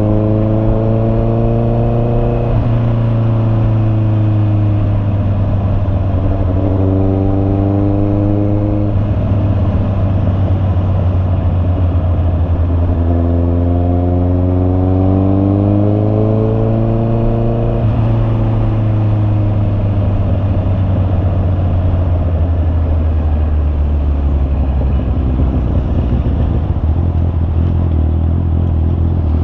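Honda CB650R inline-four engine running, its pitch rising and falling in three revs: briefly near the start, again a few seconds later, and a longer climb that drops off suddenly about two-thirds of the way in.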